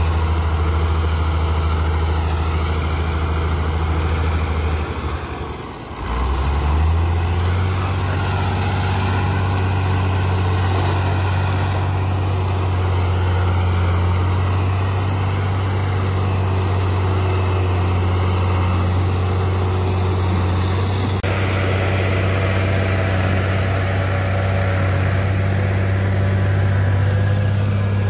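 Ford TW-20 tractor's six-cylinder diesel engine running steadily under load while pulling a five-shank subsoiler through hard ground. About five seconds in, the engine note sags briefly, then climbs back up.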